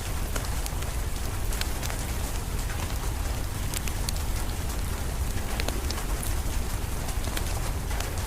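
Steady rain together with the scattered sharp pops and crackles of a wood fire, over a steady low rumble.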